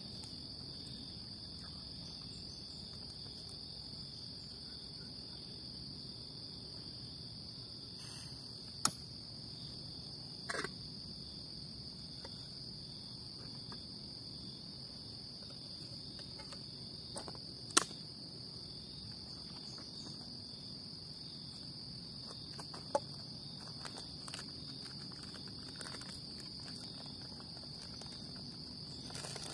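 Steady, high-pitched drone of an insect chorus, with a few sharp clicks and knocks from cookware being handled, the loudest about halfway through.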